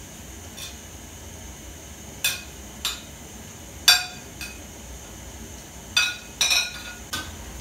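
Metal spatula clinking and scraping on a plate as sliced cabbage, carrot and green beans are pushed off it into a cooking pot: about six sharp, irregular clinks, the loudest about four seconds in.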